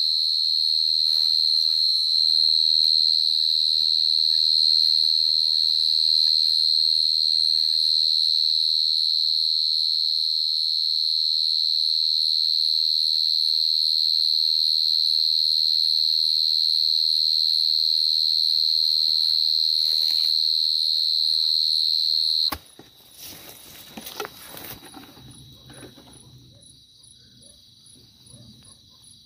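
A dế cơm cricket (Brachytrupes portentosus) singing: one loud, unbroken high-pitched trill that stops abruptly about 22 seconds in, followed by faint rustling.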